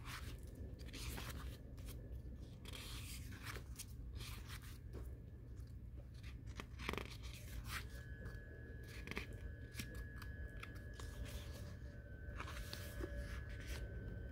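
Pages of a sticker book being turned and a hand sliding over the paper: soft, scattered paper rustles and swishes.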